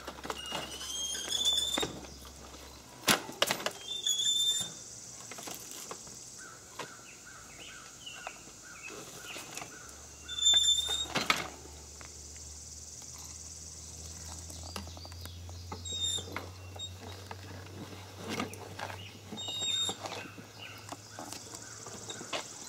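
Outdoor ambience of birds chirping over a steady high insect drone, broken by a few loud knocks and rattles from the wheelchair-to-tractor-seat transfer, the loudest about three and eleven seconds in. A low hum sets in about ten seconds in.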